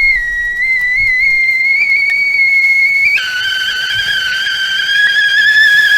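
Stovetop tea kettle whistling at the boil: a steady, high whistle that wavers slightly, then about three seconds in drops suddenly to a lower, fuller tone and holds there.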